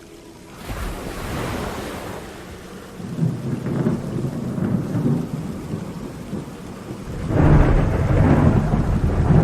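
Thunder rumbling with rain in a storm: a roll starting about half a second in, another from about three seconds, and the loudest, longest rumble from about seven seconds.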